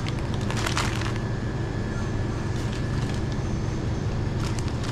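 Plastic snack and noodle packaging crinkling and rustling in short bursts as a cashier handles the items at a checkout, over a steady low hum.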